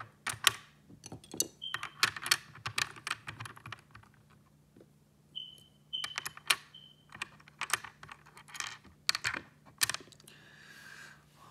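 Hard plastic puzzle pieces clicking and clattering as they are picked up, fitted onto the pegs of a plastic puzzle board and set down, in quick irregular clicks with a quieter spell near the middle. A few brief high-pitched tones sound among the clicks.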